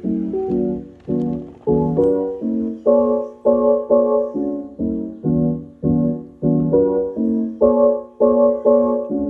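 Music: keyboard chords struck about twice a second, with faint bass underneath.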